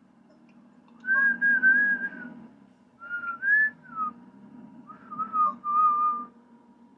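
A person whistling a tune in three short phrases, with a low steady hum underneath.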